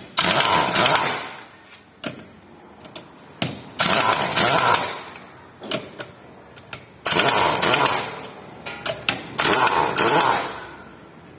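Impact wrench running in four short bursts, each starting suddenly and fading over about a second, with small clicks between.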